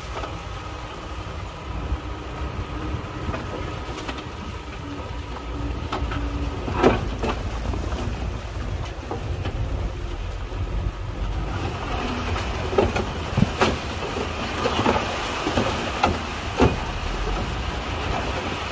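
Dump truck's diesel engine running steadily as the hydraulic hoist raises the loaded bed. Stone and soil slide out, with a loud crack of rock about seven seconds in and a run of rocks knocking down onto the pile from about twelve seconds on.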